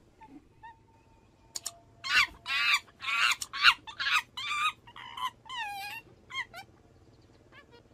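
Macaques screaming during a scuffle: a run of shrill, pitched calls, some of them quavering, starting about two seconds in and dying away near the end.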